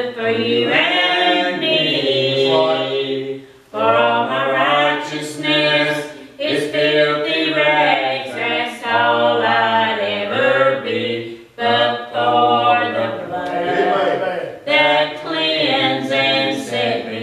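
Gospel singing: voices in harmony, like a choir, over a steady low accompaniment. The song is sung in long phrases broken by short pauses, with no clear words.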